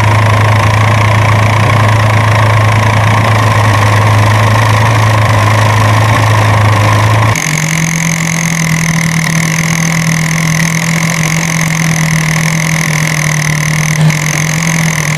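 Vehicle engine running steadily at a low hum. About halfway through, it gives way to a higher-pitched steady engine hum.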